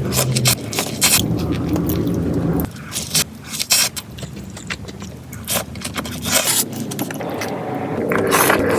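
Crisp crackling and scraping from crunchy fast food and its packaging being handled and eaten, close to the microphone, over a low steady hum that drops away about two and a half seconds in and comes back near the end.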